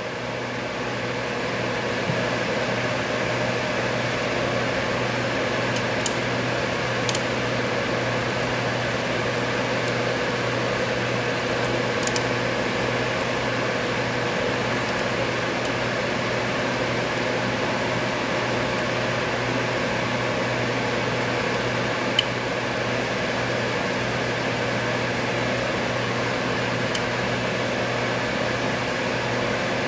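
Steady mechanical hum with a handful of faint, scattered clicks from a lock pick and tension tool working the pins of a Medeco M3 cylinder.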